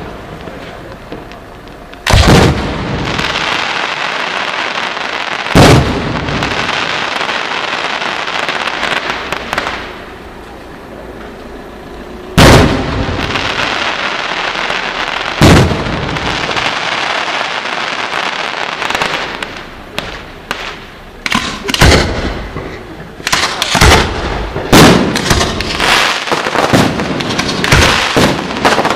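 Fireworks display: single loud bangs of bursting shells a few seconds apart, with a steady crackling hiss between them. The bangs come thick and fast over the last several seconds.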